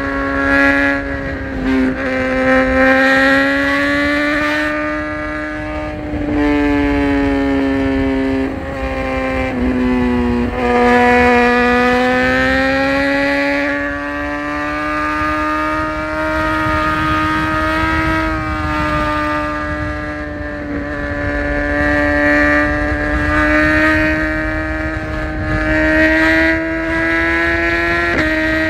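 BMW S1000RR inline-four engine running at steady high revs while cruising, its pitch drifting up and down with the throttle and dipping briefly a few times, over wind and road rush.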